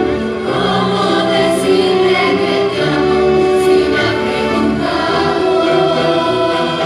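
Youth choir singing with a symphony orchestra, holding long sustained notes.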